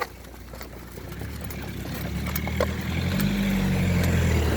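A motor vehicle's engine, growing steadily louder as it approaches, with a low steady hum.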